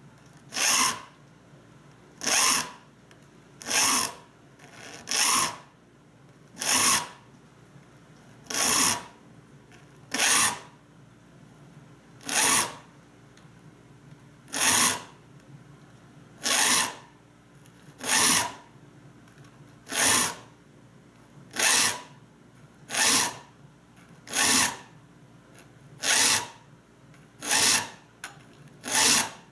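A saw file rasping across the teeth of a Spear and Jackson dovetail saw as they are sharpened. There is one short push stroke every one and a half to two seconds, about eighteen strokes in all, each gullet getting the same number of strokes.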